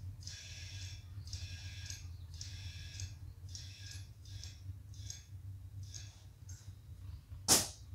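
Compressed air from a tire inflator filling a bicycle tire: short hissy pulses about every two-thirds of a second over a low steady hum, then one short, loud burst of air near the end.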